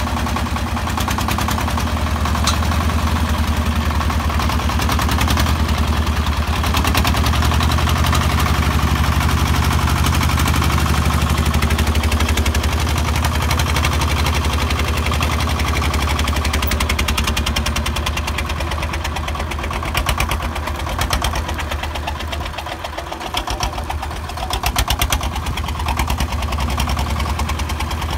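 Exposed single-cylinder diesel engine of a homemade farm truck running under load with a fast, even knocking beat. For a few seconds past the two-thirds mark the sound dips and surges unevenly, then steadies.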